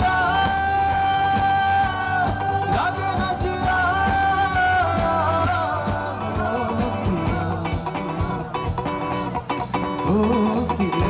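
Live rock band playing: a male singer holds long sung notes over drums and electric guitar, with the held line breaking off about five seconds in while the band plays on.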